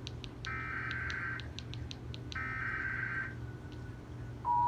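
Emergency Alert System SAME header: two roughly one-second bursts of harsh, warbling digital data tones with about a second's gap between them. Just before the end, the loud, steady two-tone EAS attention signal begins.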